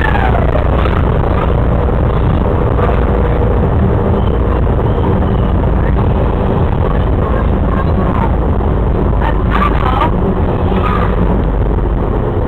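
Running noise of the original 1962 Seattle Center Monorail train, heard from inside the car: a loud, steady low rumble with a faint steady whine.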